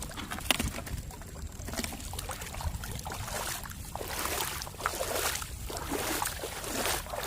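Shallow seawater sloshing and splashing in a run of short, irregular bursts, as when someone wades and moves through it.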